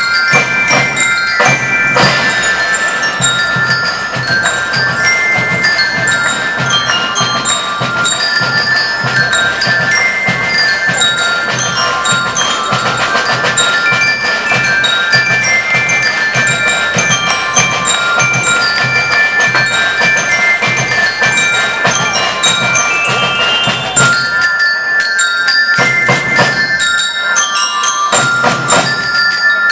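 School rhythm band playing: bell lyres ring out a quick melody over snare drums and a drum-kit beat. A little before the end the drums drop out briefly and then come back in.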